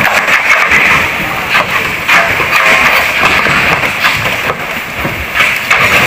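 Loud, steady rushing of a flooded river pouring past and beneath a wooden plank bridge.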